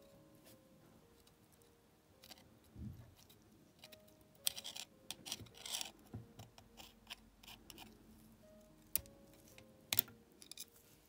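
Small hand tools and metal parts being worked: scattered clicks and short scraping sounds, with a cluster of scraping about halfway through and two sharp clicks near the end, over faint background music.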